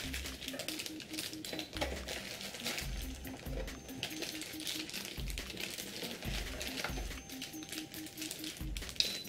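Background music with a steady bass beat and a line of short repeated notes, over the crinkling of small plastic bags of camera mounts being handled.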